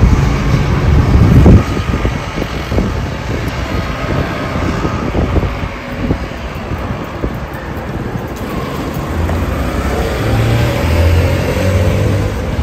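Street traffic on a busy city boulevard: cars passing, with wind on the microphone. A loud rush swells about a second in, and a low engine drone from a vehicle comes in near the end.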